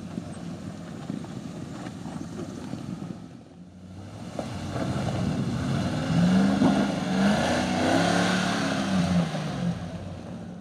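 Range Rover Classic's V8 engine working under load as it climbs rock steps, running steadily at first, then louder from about halfway in as it is revved up and down, its pitch rising and falling several times.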